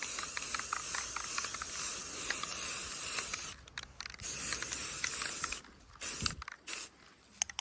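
Aerosol spray paint can hissing in bursts, with a fine crackle: one long spray of about three and a half seconds, a second after a short pause, then two quick short puffs near the end.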